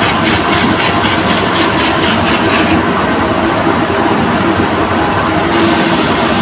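Steady, loud rushing air in a paint spray booth, with the high hiss of a spray gun's compressed air. The hiss stops about three seconds in and starts again near the end as spraying resumes.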